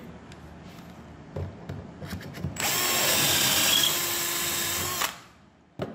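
Electric drill running as its bit bores a dowel hole through the jig's 8 mm steel bushing into the board, for about two and a half seconds, starting about halfway in and stopping abruptly. A few light knocks come from handling the jig before it, and a sharp click comes near the end.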